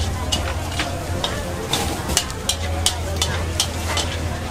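An omelet cooking: a metal utensil clinks sharply against the cookware, irregularly, two or three times a second, over a steady frying sizzle and a low hum.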